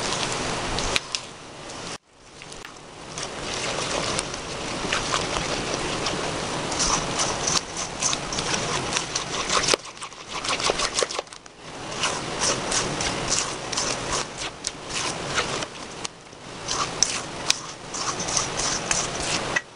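White spatula stirring wet cookie batter, eggs and vanilla being worked into creamed butter and sugar, in a stainless steel bowl: rapid, uneven scraping strokes against the metal, with a short break about two seconds in and brief pauses midway.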